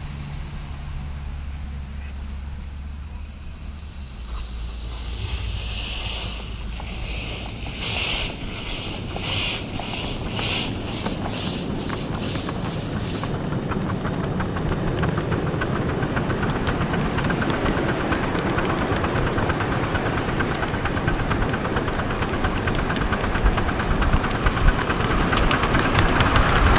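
Miniature live-steam locomotive, a model of the LNER B1 'Bongo', moving off: steam hisses from the cylinders in regular puffs, a little under two a second, from about five seconds in. After about thirteen seconds the puffs give way to steady running noise with a fast rattle of wheels on the rails, growing louder as it gathers speed.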